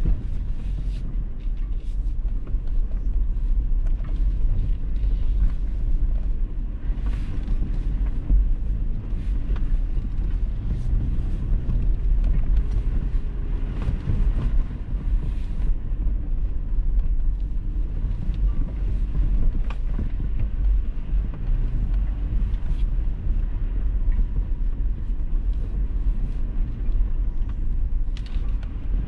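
Toyota 4Runner driving along an unpaved gravel road: a steady low rumble of engine and tyres, with frequent small knocks from stones under the tyres.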